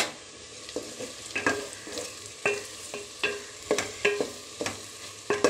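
Spatula stirring sliced onions frying in mustard oil in a metal pot: repeated scrapes and knocks against the pot, two or three a second, some with a short ring, over a steady sizzle.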